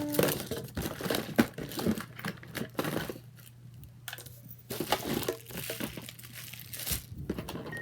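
Crinkling, rustling and light clicking of small plastic fidget toys being rummaged through and handled, busiest in the first few seconds, then scattered.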